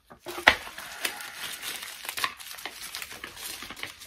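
Plastic packaging crinkling as it is handled in the hands, a string of small crackles with a sharper one about half a second in.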